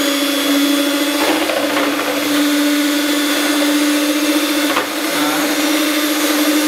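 Electric hand mixer running at a steady speed, its beaters whipping cream in a plastic jug. The motor sound dips briefly just before five seconds in.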